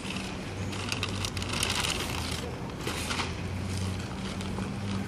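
A large sheet of paper crinkling and rustling as it is folded, louder about a second and a half in and again near three seconds, over a steady low hum.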